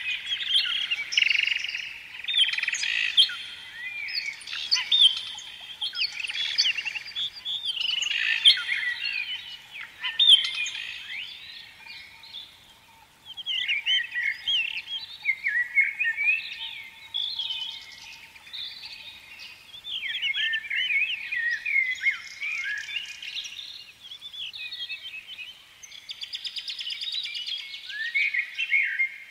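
Small songbirds chirping and twittering, many quick overlapping calls and short warbles with a brief lull about halfway through.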